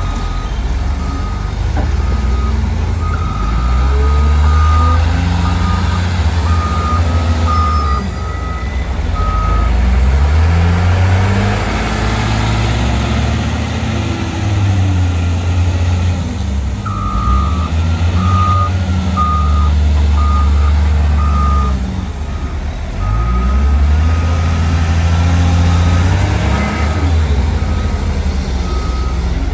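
Caterpillar 966H wheel loader's diesel engine revving up and falling back repeatedly as it works, loading sand. A reversing alarm beeps over it in two long spells, stopping about a third of the way in and starting again past the middle.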